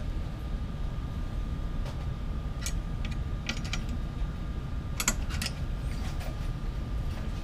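Scattered light metallic clicks and ticks of a hand tool turning the eccentric nut on a Gigabot 3.0 bed-frame wheel. The wheel is being adjusted to sit snugly against the aluminium frame rail. The clicks come irregularly over a steady low background hum, and the loudest comes about five seconds in.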